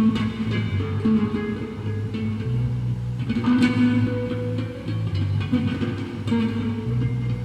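Solo bass guitar playing, plucked higher notes and chords ringing over low held notes.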